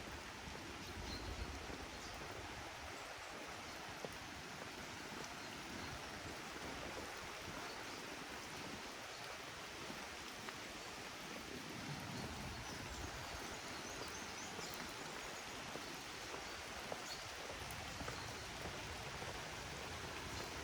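Steady rain falling in a forest: an even hiss with scattered faint drop ticks.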